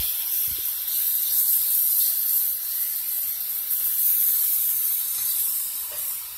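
Pork chops frying in sesame seed oil in a hot electric skillet, a steady high sizzle.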